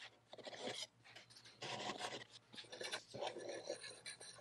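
Hand tools cutting and scraping pecan wood: a run of uneven rasping strokes with short gaps, as glued-in dowels are trimmed flush and the edges broken.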